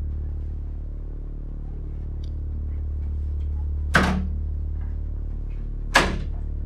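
An office door banging shut and a second sharp knock about two seconds later, over a steady low hum.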